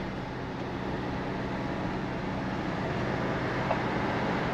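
Motorhome driving along a road, heard from inside the cab: a steady drone of engine and road noise with a low hum.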